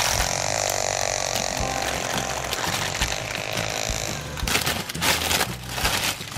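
A steady buzzing noise for about four seconds, then the crinkling of a clear plastic bag being handled.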